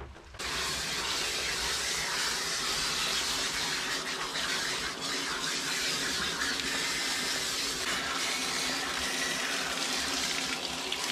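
Water spraying from a garden-hose spray nozzle onto a dog's soapy coat, rinsing out shampoo: a steady rush that starts about half a second in and cuts off suddenly near the end.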